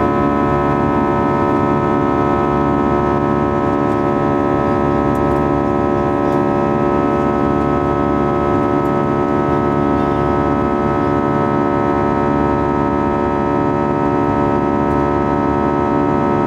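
Airbus A320 jet engines heard inside the cabin near the wing during the climb after takeoff: a steady drone made of several fixed tones over a low rumble.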